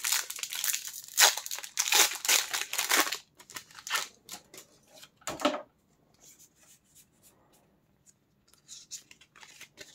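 Pokémon trading-card booster pack wrapper being torn open and crinkled, heaviest in the first three seconds, then a few scattered rustles and faint ticks.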